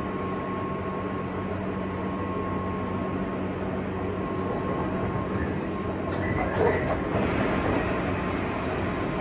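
Running sound inside a motor car of a JR West 201 series chopper-controlled electric train: a steady rumble of wheels on rail with a steady whine. About two-thirds through, a brief high squeal comes in and the running gets louder.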